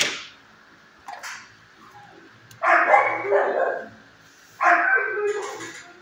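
Dogs barking in a shelter kennel block: a short bark at the start, a brief one about a second in, then two longer bouts of barking about three and five seconds in.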